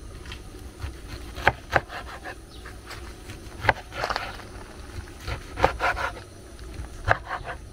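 Chef's knife chopping a bundle of washed bitterleaf on a wooden cutting board: several sharp knocks of the blade hitting the board, a second or two apart, with rustling and scraping of the wet leaves between them.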